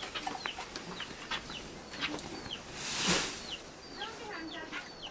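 Chickens' chicks peeping: a steady run of short, high chirps, each falling in pitch, several a second. About three seconds in, a brief rushing whoosh rises over them.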